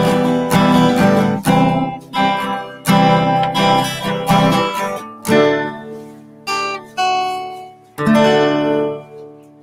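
Acoustic guitar music with no voice: chords strummed about twice a second, then a few slower chords that ring out and fade near the end.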